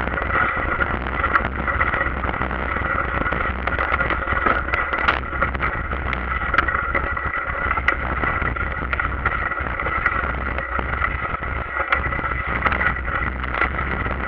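Mountain bike riding over a wet, muddy, bumpy trail, heard from a camera mounted on its handlebar: steady rolling and rattling noise with frequent short knocks and clatters as the bike hits bumps.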